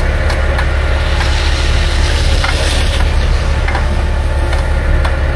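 A motor vehicle running steadily: a heavy low rumble under an even hiss, with a few faint ticks.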